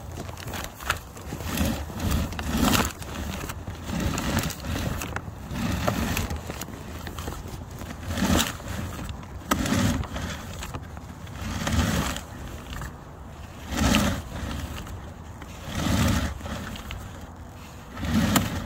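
Scraping and rustling handling noise in swells about every two seconds.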